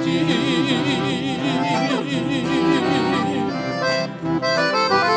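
Sertanejo duo holding the song's final word in two-part harmony with a wide vibrato, over accordion. The voices give way after about three seconds to a short closing instrumental phrase.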